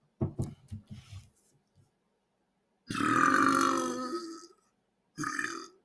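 Man belching loudly after chugging a carbonated drink: one long belch about three seconds in, lasting nearly two seconds, then a shorter belch near the end.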